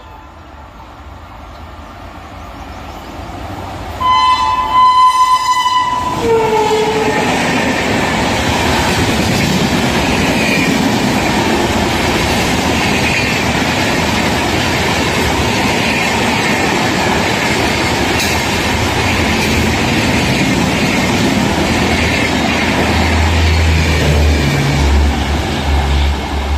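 Express train approaching and running through a station at speed. The locomotive's horn sounds for about two seconds around four seconds in, its pitch dropping as it passes. Then comes a long steady rush and clatter of the coaches going by, with a low hum joining near the end as the last car passes.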